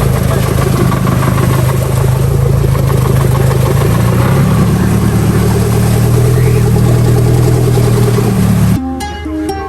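Speedboat engine running loud and steady, its pitch rising about four seconds in as it picks up speed. Near the end it cuts off abruptly to plucked-string music.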